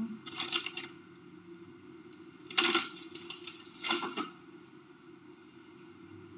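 Kitchen handling noises: three short bursts of rustling and clatter, the loudest about two and a half seconds in, over a steady low hum.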